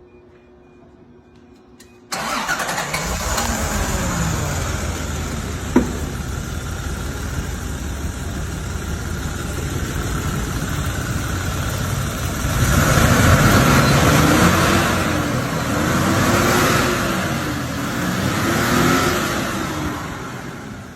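1984 Toyota Celica Supra engine running. It comes in suddenly about two seconds in, with a sharp click near six seconds. Later it is revved up and down three times before falling away near the end.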